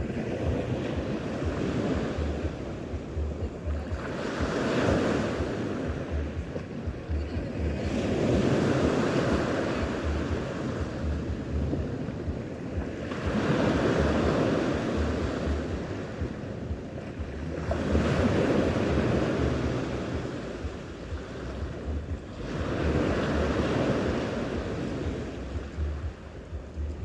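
Sea waves washing onto the shore, swelling and ebbing every four to five seconds, with wind buffeting the microphone.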